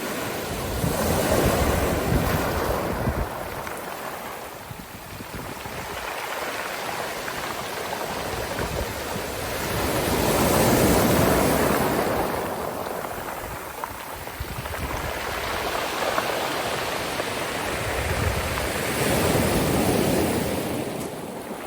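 Sea waves washing onto the shore. Three slow surges of surf rise and fall, the loudest near the middle.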